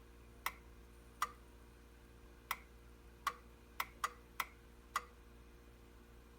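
Eight sharp ticks at uneven intervals from a Bonavita coffee maker, each with a short metallic ring, over a faint steady hum.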